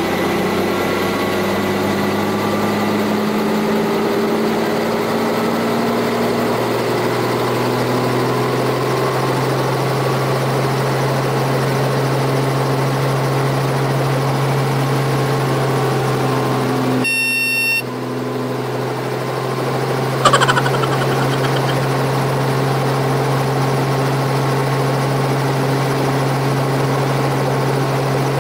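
Helicopter engine and main rotor running on the pad, heard from inside the cabin: a steady hum whose pitch climbs over the first few seconds as the rotor spins up toward flight speed. About 17 s in the sound briefly drops out under a short beeping tone, and a sharp click follows about 3 s later.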